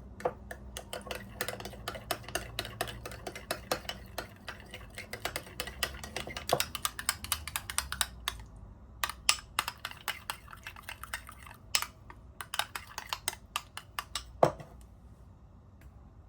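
Rapid, irregular clicking and tapping of kitchen utensils against dishes, ending about fourteen seconds in with one sharper knock.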